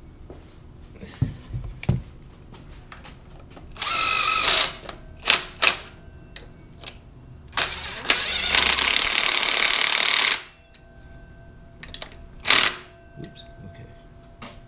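Cordless power driver run in short bursts on the bolts of an LS engine's front pulley, with one longer run of about two seconds past the middle. Sharp knocks of tool and metal parts being handled come between the runs.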